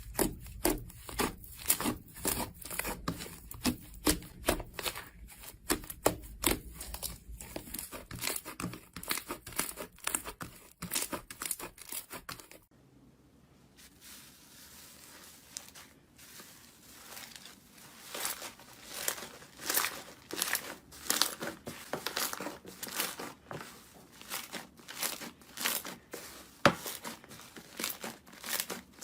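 Slime being squeezed and worked by hand, making rapid wet crackling and popping clicks. About 13 seconds in the clicking drops to a softer, quieter squish for a few seconds, then the dense popping resumes.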